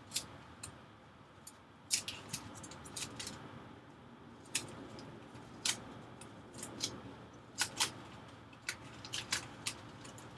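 Irregular light clicks and ticks of hands handling masking tape and small parts inside an iMac, about twenty sharp little sounds scattered through the stretch.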